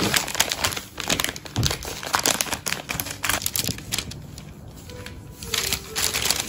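Baking paper crinkling and crackling as a wooden rolling pin rolls pastry dough across it, in a dense run of quick crackles. It eases off about four seconds in and picks up again near the end.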